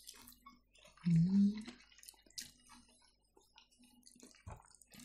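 Close-up eating sounds: soft, wet chewing and mouth noises with scattered small clicks. About a second in there is a short hummed "mm" rising in pitch, the loudest sound.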